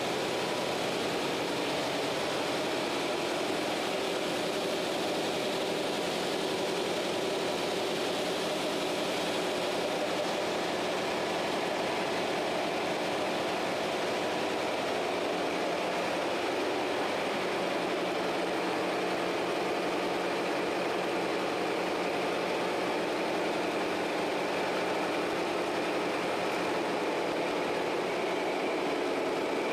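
Large inline marine diesel engine of a fireboat running steadily in its engine room: a loud, constant, unchanging machine noise with a steady hum.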